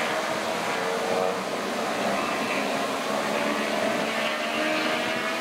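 Steady engine noise under a broad hiss, with faint tones drifting in pitch.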